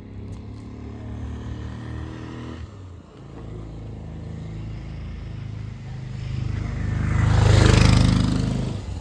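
Motor vehicle engine running at low revs, then a vehicle passing close by: a rising rush of engine and tyre noise that is loudest about eight seconds in and fades away.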